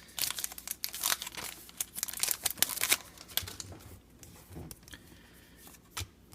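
Crinkling of a trading-card pack wrapper and cards being handled, a dense crackle for about three seconds, then a few soft taps and slides of cards.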